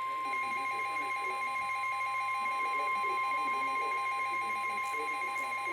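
NOAA Weather Radio's steady 1050 Hz warning alarm tone, joined about a quarter second in by a weather radio receiver's own fast-warbling electronic alert tone.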